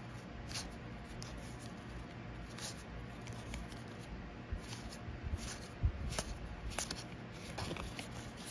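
Board-game cards being flicked through and slid against each other in the hands: scattered soft clicks and rustles, busier in the second half, with a low bump about six seconds in.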